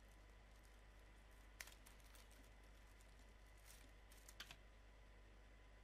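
Near silence: room tone, broken by a few faint, light clicks, one about a second and a half in and two close together a little past the middle.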